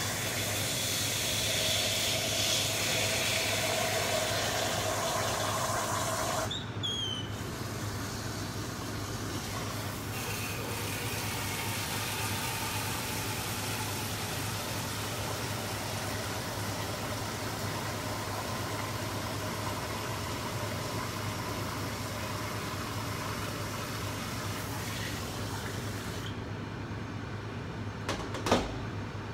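Steady hiss and low hum of a commercial kitchen's running equipment (exhaust hood, lit oven), easing slightly about six seconds in, with a couple of sharp knocks near the end.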